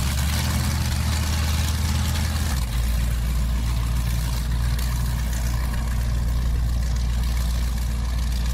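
Big racing powerboat engines idling with a steady, deep rumble. The sound changes abruptly about two and a half seconds in.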